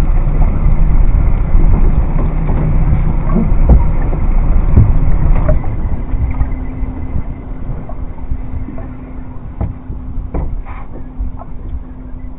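Small boat's outboard motor running, with wind and water rumbling on the microphone; the rumble eases about halfway through while a steady hum carries on, and a few light clicks come through.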